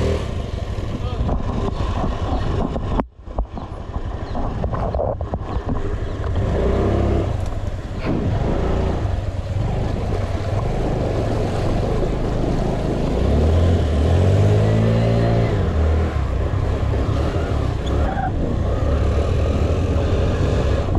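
A motor vehicle's engine running while being driven, revving up and easing off about two-thirds of the way through.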